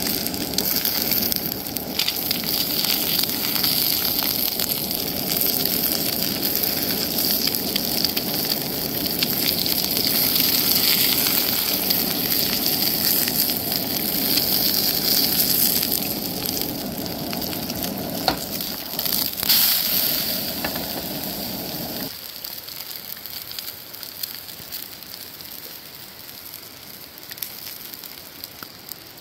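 Eggs sizzling in a hot nonstick frying pan on a portable gas camp stove, with a few clicks and scrapes from a spatula. The burner's low rush underneath cuts off suddenly after about twenty seconds, and the sizzle then fades.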